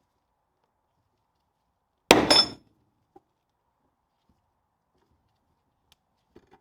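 A single sharp metallic bang with a short ringing tail about two seconds in, from steel parts on a differential carrier under a bearing puller; it is typical of a tight bearing breaking free. A few faint ticks follow.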